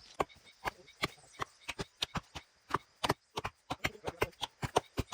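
A rapid, irregular run of sharp blows on dry wood, about four a second and varying in loudness, as dry jackfruit wood is chopped.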